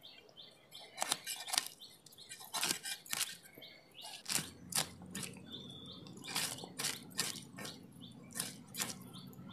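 Scales being scraped off a spotted snakehead (lata fish) against the iron blade of a boti, a curved Bengali cutting blade set in a wooden base. The strokes are short and rasping and come irregularly, roughly two a second.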